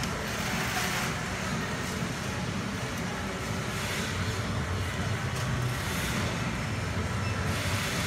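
Steady background rumble and hiss with no distinct events.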